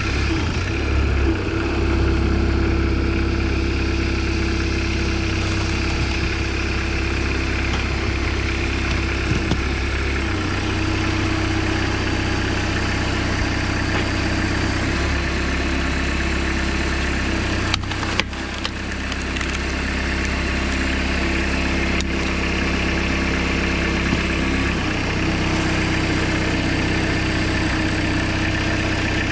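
Engine of a homemade tractor running steadily, driving the hydraulics of a tractor-mounted log splitter; its note shifts a few times. A few sharp knocks about two-thirds of the way through.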